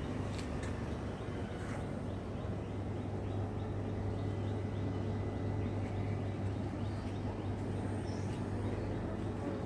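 Outdoor ambience: a steady low hum, with a run of quick high chirps at about four a second through the middle.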